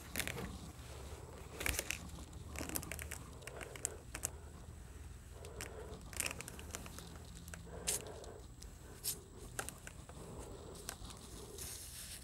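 Irregular rustling and crinkling of cotton fabric as an Oliso iron is pressed and slid over a quilt top and batting to fuse-baste the layers, with scattered light knocks and clicks as the iron is set down and shifted.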